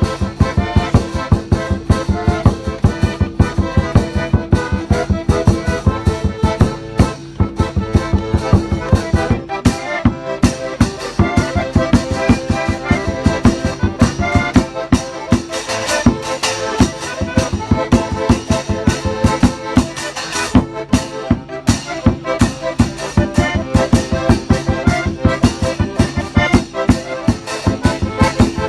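Accordion playing a lively tune to a steady, quick beat of about four strokes a second.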